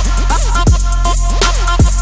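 Electronic music with a heavy, steady bass and a beat, its bass notes sliding down in pitch again and again.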